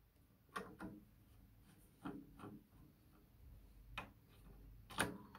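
Faint, scattered clicks and scrapes of a screwdriver working at the screws and metal front panel of a Peavey Automix 2 eight-channel rack mixer, about half a dozen at uneven intervals, the loudest near the end.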